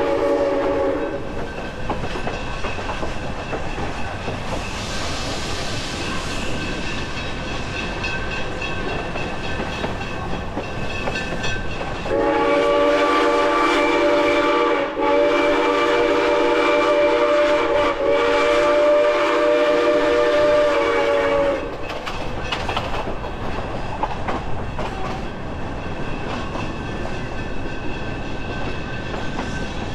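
Durango & Silverton narrow-gauge steam locomotive's chime whistle, several tones sounding together. One blast ends about a second in. About twelve seconds in it sounds again as three long blasts with brief breaks between them, about nine seconds in all. Under it, the coach runs on the rails with a steady rolling noise.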